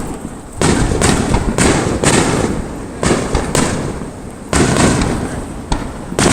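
Fireworks bursting in quick succession: about ten sudden bangs, each trailing off in a fading rumble, one to two a second.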